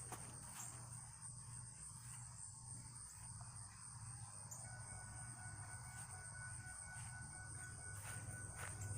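Faint, steady chirring of insects, with a low steady hum under it and a thin steady tone that comes in about halfway through.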